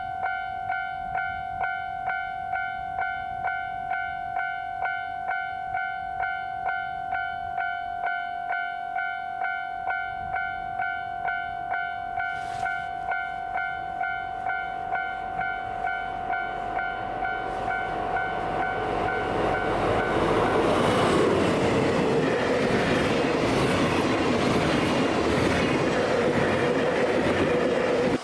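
Level-crossing warning bell ringing, a two-tone electronic clang repeating about twice a second. About two-thirds of the way through, a train's rumble and wheel noise grow and drown out the bell as the train runs over the crossing.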